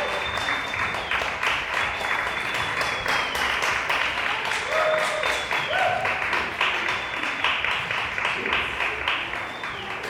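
Audience applauding, with a few high held whistles and short shouts over the clapping.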